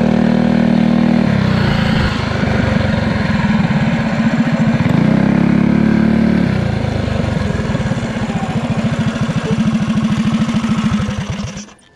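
Pit bike engine under way: held at high revs, easing off about a second in, revving up again around five seconds and easing off, then running slower with its separate firing pulses audible before fading out near the end.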